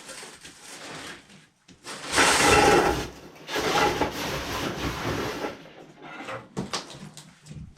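Scraping and knocking as a furnace cabinet is shifted and set into place, in two long scrapes with smaller knocks between.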